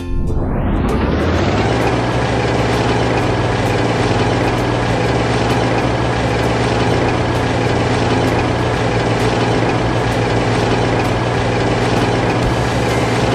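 A heavy engine running steadily at one speed, with a deep hum under a dense noise. It fades in over the first second and begins to fade out at the very end.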